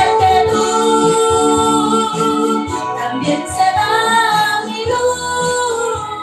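A woman singing into a handheld microphone, holding long notes that waver in pitch.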